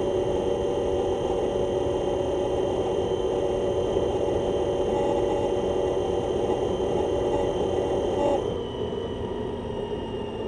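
Ather 450X electric scooter riding at speed: a steady whine from its electric motor and drive over road and wind noise. About eight seconds in, the sound drops in level and the whine starts to fall slowly in pitch.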